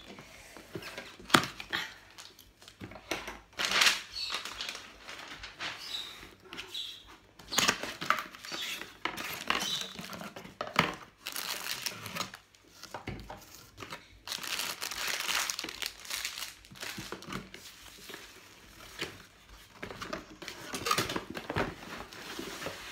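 Plastic wrapping and cardboard packaging crinkling and rustling in irregular bursts as a box is unpacked by hand, with a few sharp clicks and knocks.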